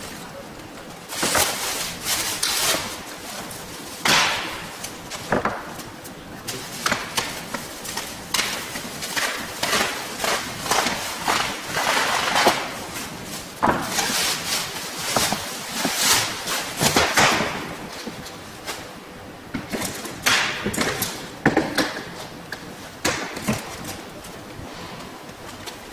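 Plastic wrapping rustling and crinkling in irregular bursts as it is handled and pulled off a bundle of long tubes, with a few sharper knocks.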